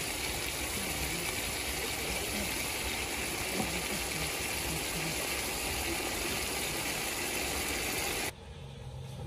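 Onions, tomatoes and green peppers sizzling in hot oil in a metal pot, a steady hiss that cuts off suddenly near the end.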